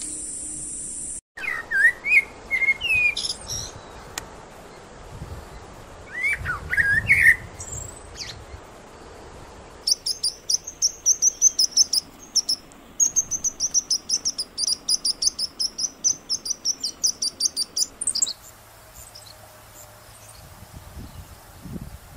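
Birds calling: a few whistled, sliding calls in the first several seconds, then a rapid run of high chirps, about four a second, for around eight seconds before it goes quieter.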